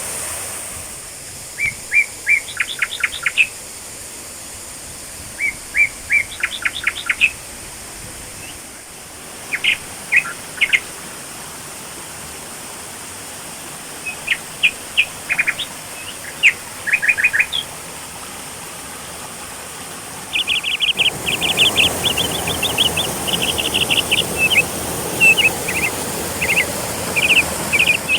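A forest bird calling in several quick bursts of short, high chirps. Under it runs the steady rush of the falling water, which swells noticeably about two-thirds of the way through.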